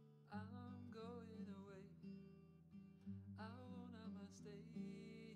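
Quiet background music featuring acoustic guitar.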